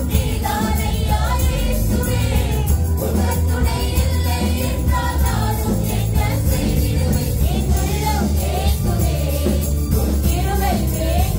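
Live church worship band playing a Tamil praise song: a woman's lead vocal sings the melody over bass, keyboard and a steady percussion beat with a jingling, tambourine-like shimmer.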